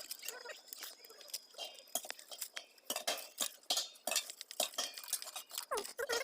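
Hands working a CCTV camera's cable and BNC connector into place: irregular small clicks, taps and light clinks of plastic and metal parts.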